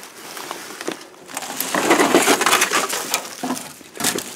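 Dry fallen leaves crunching and rustling, loudest in the middle, with a few sharp crackles near the end.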